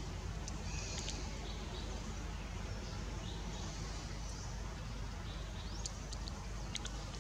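Outdoor ambience: a steady low rumble and hiss, with faint, short high chirps scattered through and a few in quick succession near the end.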